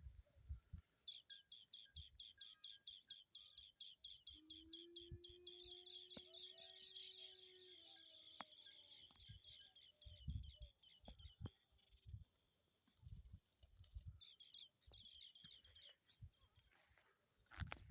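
Faint bird song: a long, fast trill of repeated high chirps at about seven notes a second, which breaks off and starts again near the end, with scattered soft low thumps.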